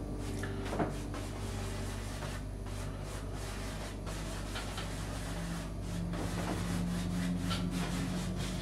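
Large paint brush scrubbing and blending oil paint on a stretched canvas, in short rubbing strokes, over a steady low hum.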